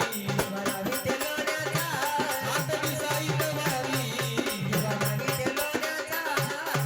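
Marathi folk song music: a wavering melody over steady rhythmic percussion with a shaken rattle.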